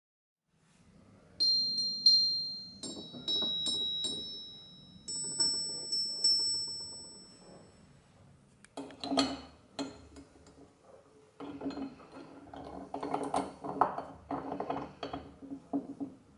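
Small metal parts struck against each other, each strike leaving high, clear ringing notes that hang for a second or two, several strikes in the first half. Then a run of knocks and clatter as metal parts are handled on a wooden workbench.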